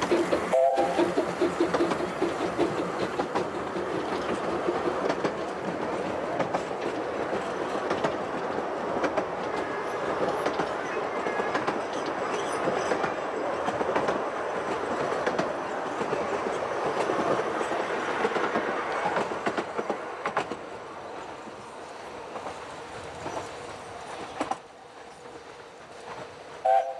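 Miniature 15-inch-gauge steam train passing: exhaust and the coaches' wheels clattering over the rail joints, fading away after about 19 s. A short whistle blast sounds near the end.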